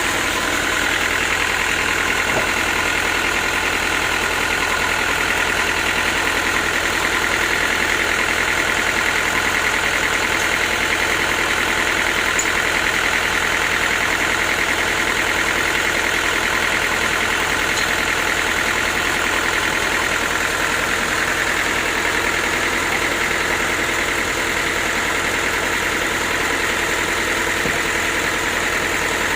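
Sawmill engine running steadily at an even level, with a steady high whine over the drone.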